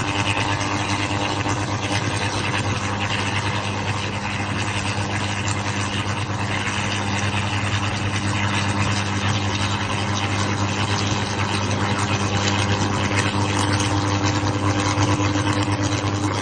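Engine running steadily at constant speed, with a dense rushing noise over it.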